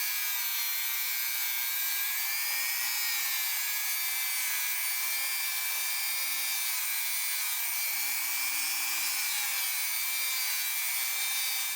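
Dremel rotary tool running steadily, its whine wavering slightly in pitch as a buffing wheel polishes a steel tube.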